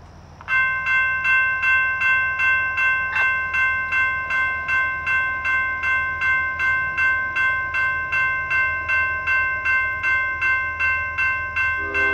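Railroad grade-crossing bell starting to ring about half a second in, then ringing on at a steady, rapid pace of about two to three strikes a second.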